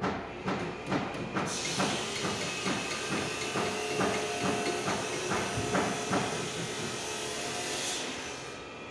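A pressurised spray hissing steadily for about six seconds, starting about a second and a half in, over a regular knocking about twice a second.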